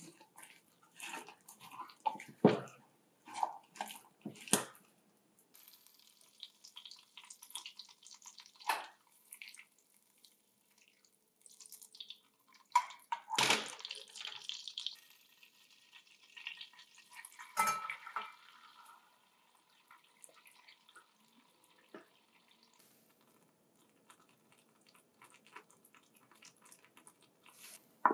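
A silicone spatula scraping and folding walnuts into thick banana batter in a glass bowl: a run of sharp scrapes and wet squelches. Then butter sizzling as it melts in an enamel saucepan and is stirred, with a couple of sharp knocks, fading to a faint low bubbling near the end as the butter and sugar cook down toward caramel.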